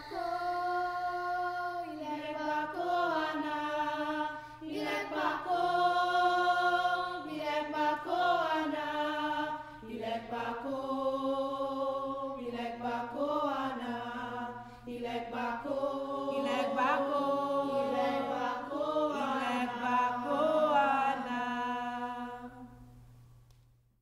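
Slow chant-like singing, long held notes that slide from pitch to pitch over a steady low drone, fading out near the end.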